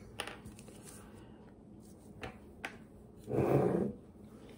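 Handling sounds of a glass whiskey bottle being turned and laid flat on paper-covered craft table: a few light clicks, then a louder rub lasting just under a second about three and a half seconds in.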